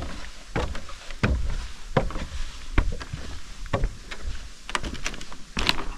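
Footsteps on the wooden plank deck of a suspension footbridge: a sharp knock a little under once a second over a low rumble.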